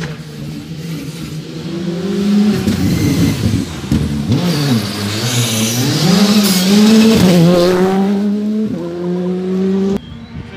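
Rally car engine approaching and passing close: the revs drop as it slows into the corner, then climb as it accelerates away, loudest a little past halfway. The sound cuts off abruptly near the end.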